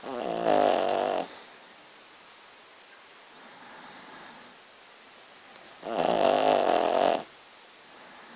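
A sleeping Shih Tzu snoring: two loud snores about six seconds apart, each lasting a little over a second, with soft breathing between them.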